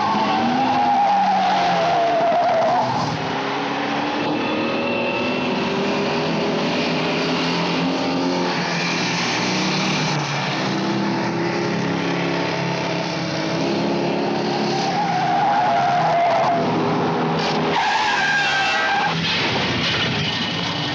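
Film chase sound of the Opel Commodore GS/E's engine revving hard through the gears, with tyre squeals on the bends, the longest at the start and again after about fifteen seconds.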